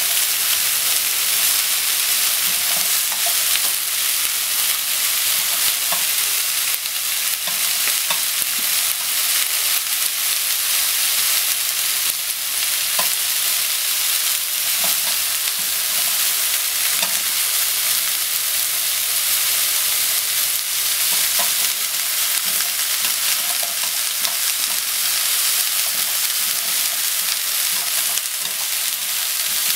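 Shredded cabbage sizzling steadily in a non-stick frying pan as it is stir-fried with chopsticks, with occasional light clicks.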